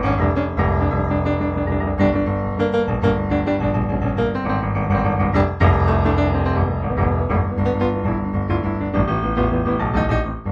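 Solo piano music, improvised, with a steady flow of struck notes over held low bass notes.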